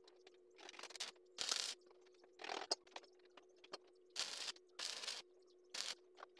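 Stick (arc) welder striking short arcs: about six brief bursts of arc crackle, each under half a second, as small tack welds are laid on a steel part. A steady hum runs underneath.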